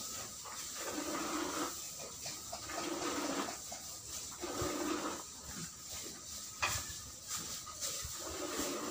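Milk squirting into a pail as a cow is milked by hand, in repeated squirts that hiss and ring in the pail, with a few light knocks.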